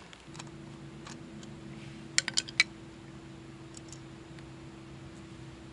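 A quick run of four sharp little clicks about two seconds in, from small metal parts being handled on a scooter carburetor as a brass jet is fitted, over a faint steady hum.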